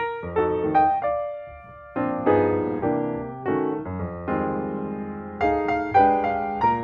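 Background piano music: chords and single notes struck every half second or so, each fading away.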